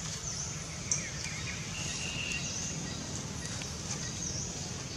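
Outdoor woodland ambience: a steady high buzz that swells and dips every second or two over a low rumble, with a single sharp click about a second in.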